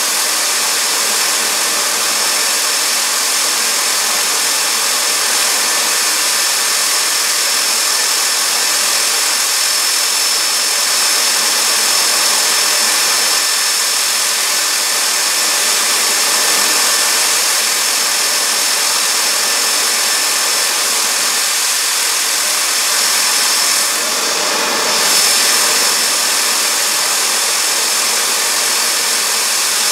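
Fairchild J44 turbojet engine running steadily: a loud rushing hiss with a steady high-pitched whine over it. About 24 seconds in the whine drops out briefly and the sound dips, then swells for a moment.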